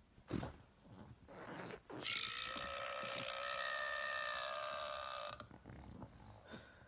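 A Patrick Star plush dog toy's built-in sound plays a burp as the pug mouths it: one long, steady-pitched burp of about three seconds, starting about two seconds in. Short snuffles from the pug come before it.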